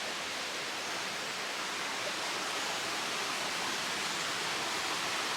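Steady rush of a jungle river and waterfall, an even, unbroken hiss of falling and running water.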